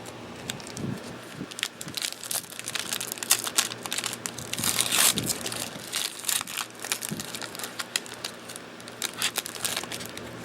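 Crinkling, crackling and tearing of a trading-card pack's foil wrapper being torn open and crumpled, with the cards inside being handled; the rustling is busiest about halfway through.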